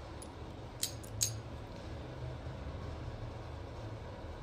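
Two short, sharp metallic clicks about a second in, from steel governor parts of a Hino J08C diesel fuel injection pump being handled and fitted together, over a steady low hum.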